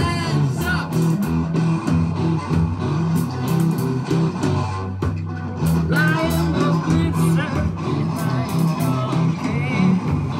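A live band playing a song on guitars and bass guitar, with singing coming in about six seconds in.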